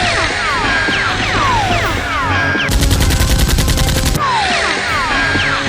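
Dubbed-in gunfire sound effects over background music. A burst of rapid machine-gun fire runs through the middle. Before and after it come stretches of many overlapping falling whistling tones, like ricochets or blaster zaps.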